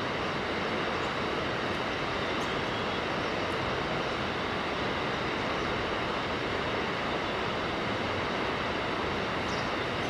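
Steady, unbroken rush of a mountain river, an even wash of flowing water.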